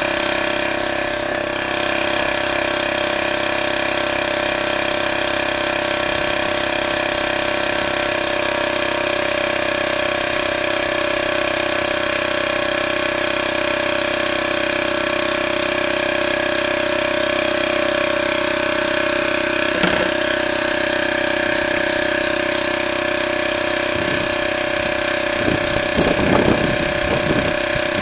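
A steady machine drone made of several unchanging tones, with a few metal clinks and knocks about four seconds from the end.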